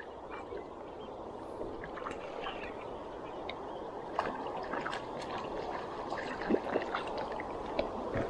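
Steady rush and trickle of a shallow river, with scattered small splashes and clicks that come more often from about four seconds in, while a hooked fish thrashes at the surface and is played in on a fly line.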